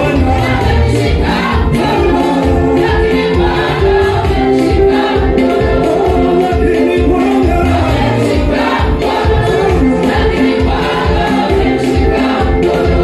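Group of voices singing a gospel praise song together over music with a steady beat.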